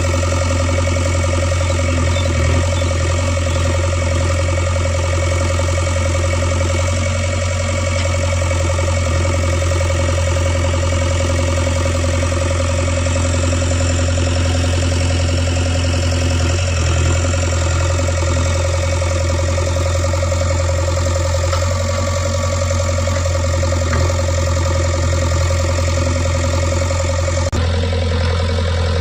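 JCB 3DX backhoe loader's diesel engine running steadily with a low, even drone; the sound shifts slightly near the end.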